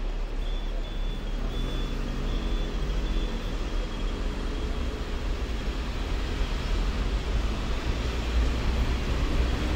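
Hong Kong double-decker electric tram running along the street, heard from aboard: a steady low rumble. A faint whine runs through the first few seconds.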